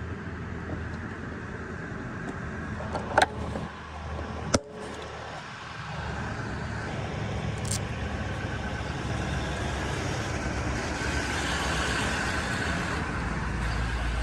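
An engine running steadily, louder from about six seconds in, with two sharp knocks a little before that.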